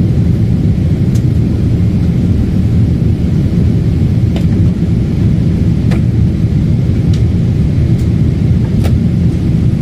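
Boeing 777 cabin noise: a loud, steady low rumble of engines and airflow, with a few faint clicks.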